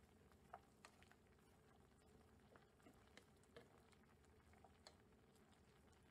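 Very faint, scattered pops and soft clicks of a thick coconut-milk curry simmering in a pan, with a wooden spatula moving through the sauce now and then, over a low steady hum.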